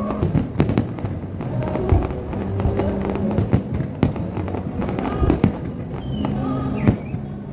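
Aerial fireworks shells bursting in a rapid string of sharp bangs and crackles, with several louder booms. Music with held notes plays underneath.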